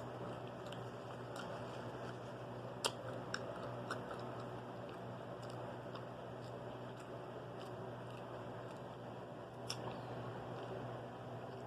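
Close-miked chewing of a fried popcorn shrimp po' boy sandwich, with a few sharp crunchy clicks, the loudest about three seconds in and another near ten seconds, over a steady low hum.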